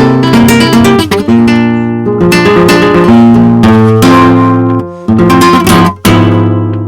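Background music: strummed acoustic guitar in a flamenco style, with sharp strokes and ringing chords that break off briefly twice.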